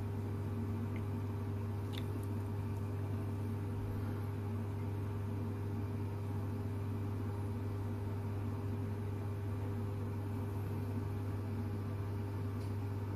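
A steady low hum with a fainter higher tone over it, unchanging throughout, and one faint click about two seconds in.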